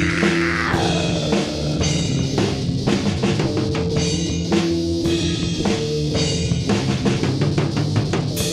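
Hard rock band playing an instrumental passage: a drum kit beating steadily with bass drum and snare under held distorted guitar and bass notes.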